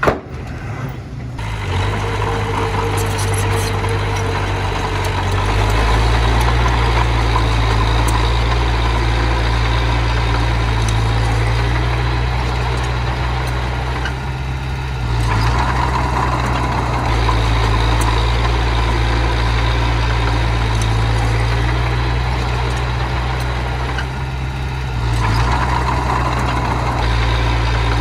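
Diesel engine of earth-moving machinery running steadily, easing off twice and picking up again. A sharp click right at the start.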